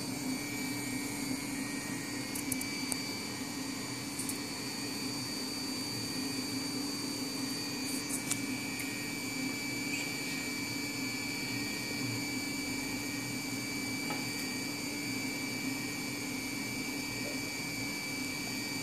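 Zhilei SLA 3D printer's build-platform drive motor running steadily with a whine, lowering the platform into the resin vat. A few faint clicks sound over it.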